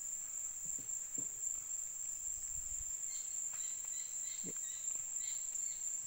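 Insects droning steadily on one high pitch, with a few faint short sounds in the background.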